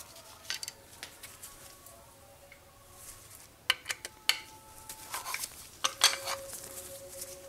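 Metal clinks and clicks of a 3/16 hex key and steel screws against the lathe's steel cross-slide parts while screws are worked loose. A few sharp clinks come a little before halfway and again later, some leaving a brief metallic ring.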